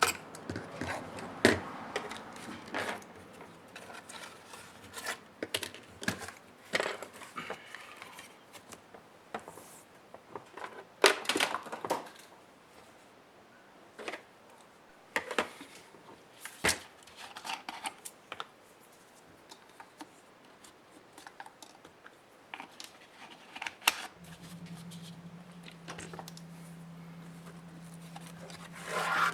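Irregular clicks, taps and scrapes of small plastic and metal laptop parts being handled and pried apart by hand. Near the end a steady low hum starts.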